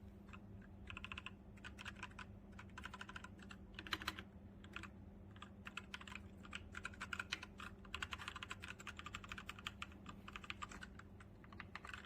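ZIYOU K3 mechanical keyboard with red linear switches being typed on, rapid keystrokes coming in bursts of clicks with short pauses between them.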